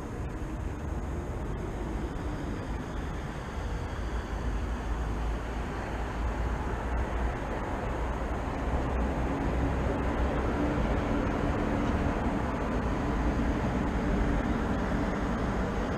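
Steady rumble of city traffic that grows slowly louder, with a low hum from a nearing vehicle coming in about halfway.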